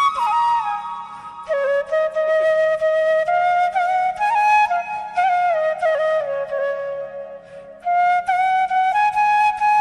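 Background music: a flute playing a melody with short slides between notes, with a brief break between phrases about three-quarters of the way through.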